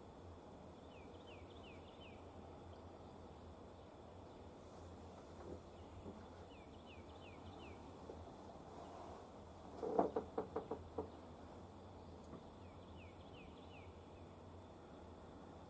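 A bird repeating a short phrase of four quick falling notes three times, about six seconds apart, over a low steady background hiss. About ten seconds in comes a quick run of about six knocks, the loudest sound.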